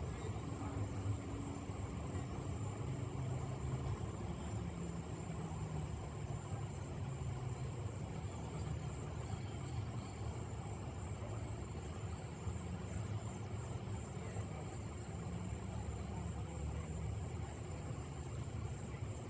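Steady low background rumble with a constant thin high-pitched tone above it; no distinct events.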